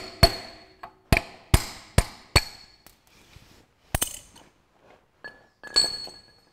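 Hammer tapping a metal tool held against a Woodruff key to seat it in the crankshaft keyway: five sharp metal taps in the first two and a half seconds and one more about four seconds in, then metal tools clinking and ringing as they are set down near the end.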